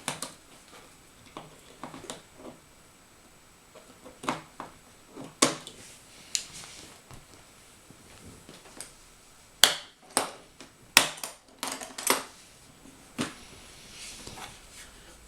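Packaging being handled and opened: scattered rustles, scrapes and light knocks, with a cluster of sharp clicks and snaps in the second half.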